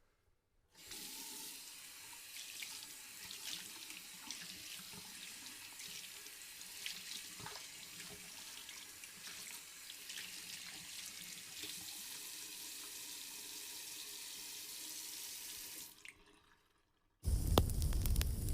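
Water running from a sink tap while hands are washed under it: a steady splashing hiss with small splashes, which stops at about 16 seconds. Near the end a louder crackling sound cuts in.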